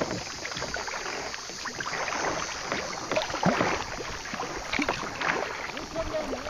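Kayak paddle splashing and water lapping against the kayak, in irregular strokes.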